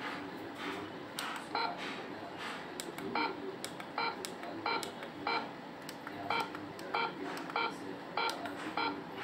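ZKTeco WL-20 time attendance terminal's keypad beeping with each button press: about a dozen short beeps, one every half second to a second, as its menu is worked through, with faint clicks from the keys.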